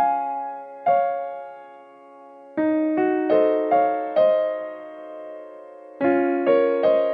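Background music: slow solo piano, single notes and chords struck and left to ring and fade.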